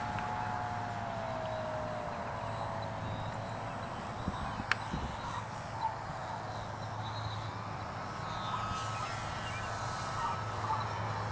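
Electric RC aerobatic plane (EPP Extra 260 with an Omega 1030Kv motor and a 12x6 APC propeller) in flight: a thin motor-and-propeller whine that slides down in pitch over the first few seconds, then a higher whine returns about eight seconds in. A few sharp ticks come around the middle.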